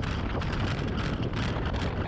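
Heavy wind buffeting on the microphone of a camera mounted on the tail of an Avid MKIV bush plane as it rolls fast for takeoff. It is a dense, low rush, mixed with the plane's engine and propeller.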